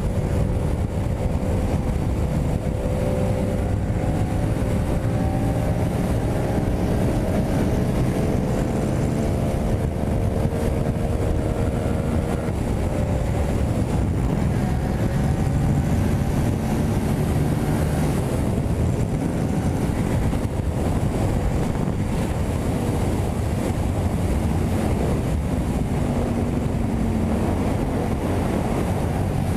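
Yamaha MT-07's parallel-twin engine pulling steadily at highway speed, around 145 km/h, under heavy wind rush on the microphone.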